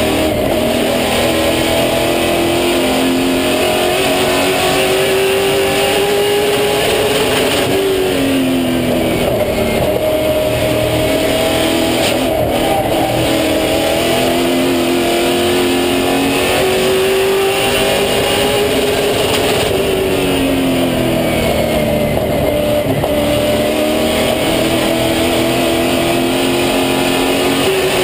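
Super late model race car's V8 engine heard from inside the cockpit at racing speed, its pitch climbing along the straights and dropping twice as the driver eases off for the turns.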